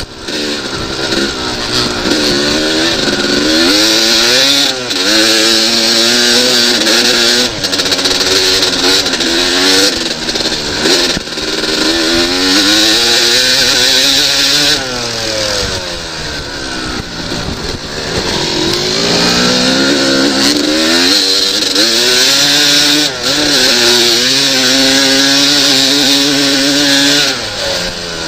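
1998 Yamaha YZ250 two-stroke dirt bike engine ridden hard, heard from the rider's own bike: its pitch climbs over and over, then drops back at shifts and corners, with a long fall and climb about halfway through.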